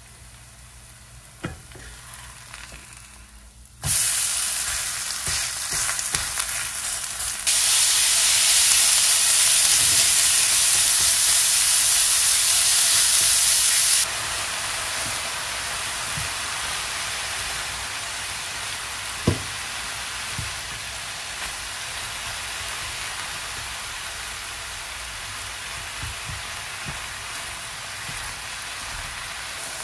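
Food hitting a hot oiled pan about four seconds in and sizzling, loudest for several seconds, then settling to a steadier sizzle as it is stir-fried, with a few light knocks.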